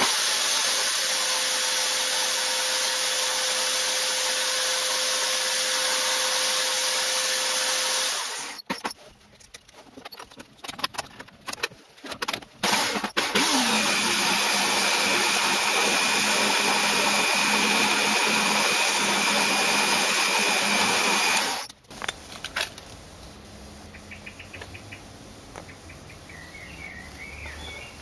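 A power tool runs steadily for about eight seconds with a loud hiss, stops for a few seconds of clicks and handling, then runs again for about eight seconds, its pitch dropping as it settles, before cutting off into quieter handling.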